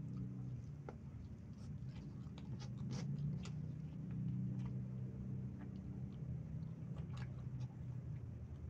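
A person chewing a mouthful of fried snack and yellow rice close to the microphone, with scattered short wet mouth clicks and smacks. A steady low hum runs underneath.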